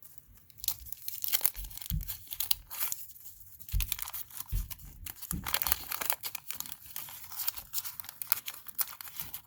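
A 1987 Garbage Pail Kids wax-paper pack being torn open and its wrapper crinkled: a dense run of sharp crackles and rips, with a few soft low thumps.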